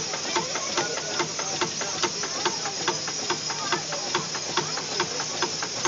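Steam traction engine idling: a steady hiss of steam with a regular clicking, about five a second, from the running engine.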